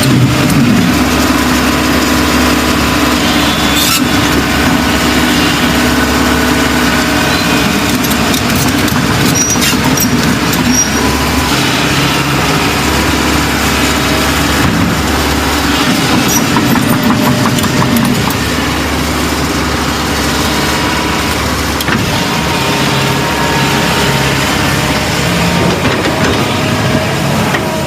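Heavy diesel engines of an excavator and a dump truck running while sand is loaded, the engine note rising and falling with load, with a few short knocks.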